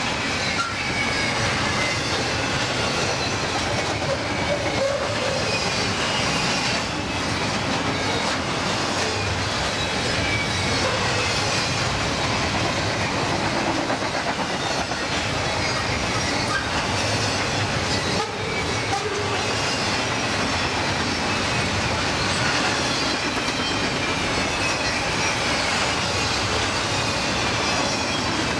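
Double-stack container well cars of a freight train rolling past, a steady rumble and rattle of steel wheels on the rails. High wheel-squeal tones slide down in pitch again and again as the cars go by.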